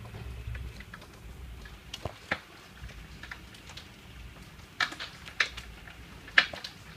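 Hailstones striking a window pane in irregular sharp ticks, a few scattered ones and then small clusters, the loudest a little before the end, over a low steady rumble.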